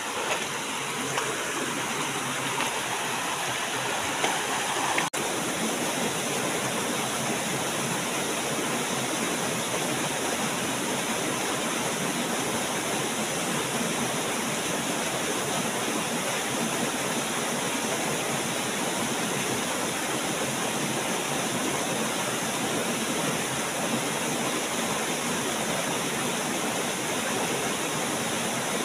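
Steady rush of a rocky stream pouring over a small waterfall, an even, unbroken roar of water with a momentary dropout about five seconds in.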